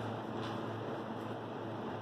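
Steady room tone: an even background hiss with a low constant hum, broken by a couple of faint clicks.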